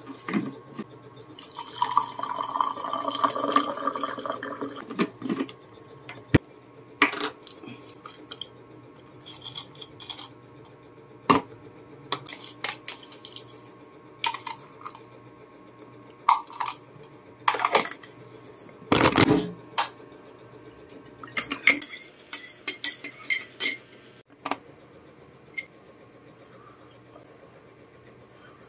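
Hot water poured from a jug into a ceramic mug for a few seconds near the start, then scattered clinks and taps of a spoon against the mug and a small plastic cup as coffee is made and stirred.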